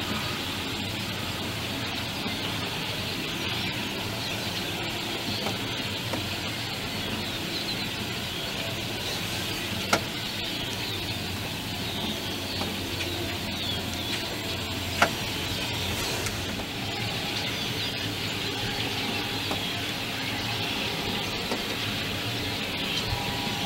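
Quiet outdoor background hiss with no clear source, broken by two short sharp clicks about ten and fifteen seconds in.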